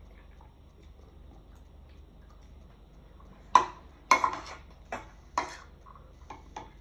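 Metal spoon clinking and scraping against a bowl of rice as food is scooped. About three and a half seconds in comes the loudest clink, followed by a quick run of clinks and scrapes, then two lighter taps near the end.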